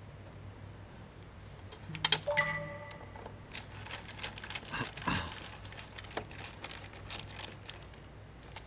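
A sharp metallic clink about two seconds in that rings briefly with a few clear tones, then scattered light clicks and taps as small hex screws are handled and set into the laptop's bottom cover.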